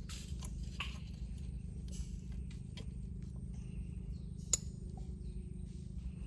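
A thin metal crab hook probing a crab burrow in mangrove mud, giving faint scrapes and clicks. A steady low rumble runs underneath, and one sharp click comes about four and a half seconds in.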